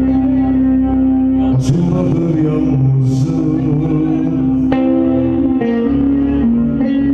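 Live Turkish folk music in the Ankara havası style: an electronic Korg keyboard plays held melody notes over a plucked lute, with a man singing into the microphone.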